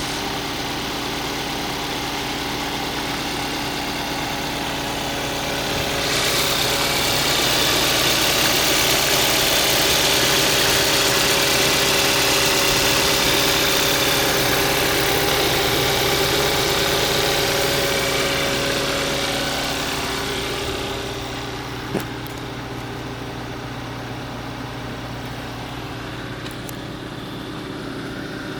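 2013 Hyundai Accent's 1.6-litre four-cylinder engine running steadily at idle, brought up to a higher, louder speed about six seconds in and held there for roughly fifteen seconds before dropping back to idle. A single sharp click comes shortly after it settles.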